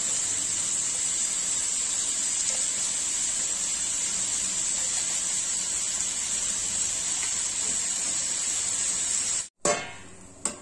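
Steady sizzling hiss of cabbage, potatoes and papaya frying in a steel wok, cut off abruptly near the end. A sharp metallic clank follows as the steel lid is set on the wok, then a second clank.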